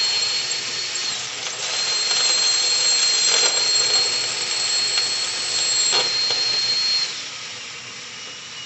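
Power drill running a carbide bit into a gun safe's steel, just through the hardened plate, with a steady high whine over a hiss. It eases briefly about a second in and winds down about seven seconds in.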